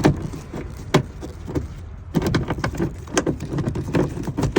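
Hand ratchet clicking as a bolt on a seat belt retractor is turned out by hand. The clicks are scattered at first, then come in quicker runs from about two seconds in.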